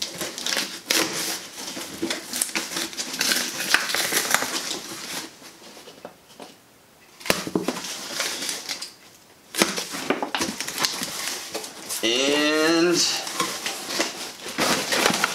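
Packing tape being ripped off a cardboard box and the box flaps pulled open, a run of crackling and tearing with a couple of short pauses and a sharp click midway. About twelve seconds in, a person makes a brief drawn-out vocal sound that rises in pitch.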